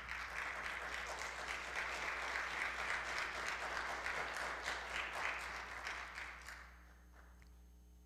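A congregation applauding: many hands clapping together, tapering off about seven seconds in.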